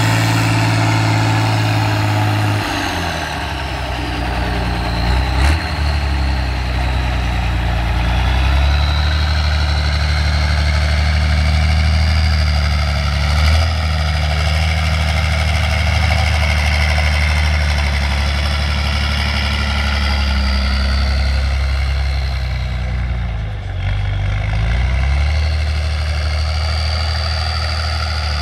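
Trial truck's engine working under load as it climbs through deep sand, its note dropping about two seconds in, then running steady with a few brief dips in revs. A high whine rises and falls over the engine.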